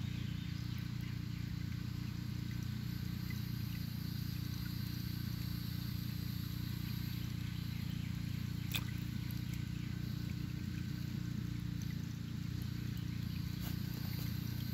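Steady outdoor ambience: a constant low rumble with a faint, high, even insect buzz above it, and a single short click about nine seconds in.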